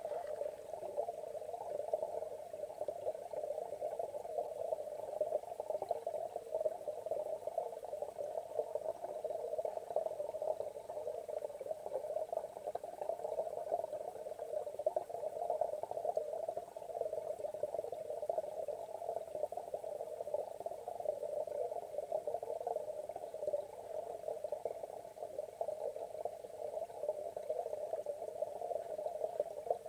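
Steady, muffled midrange rushing noise, unchanging throughout: ambient water sound picked up by an underwater camera.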